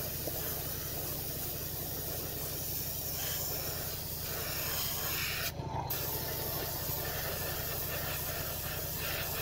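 Airbrush spraying paint in a steady hiss, which cuts off for a moment a little past halfway and then resumes. Underneath, a small airbrush compressor runs with a low, rapidly pulsing hum.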